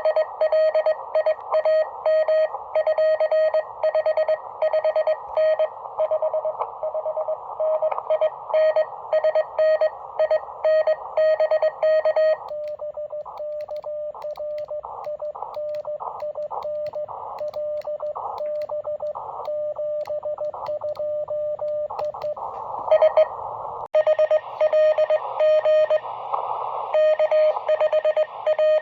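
Morse code (CW) from a ham radio transceiver: a single beep tone keyed on and off in dots and dashes over receiver hiss squeezed into a narrow band by the CW filter. About halfway through the code gets fainter against the hiss, and near the end it comes back strong.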